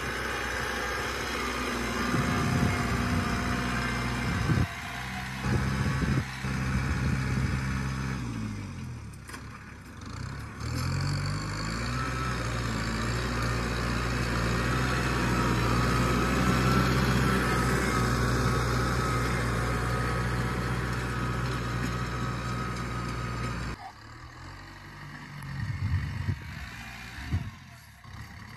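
Kubota M6040 tractor's diesel engine running under load as it pulls a disc plough through soil. Its engine note dips and picks up again a couple of times.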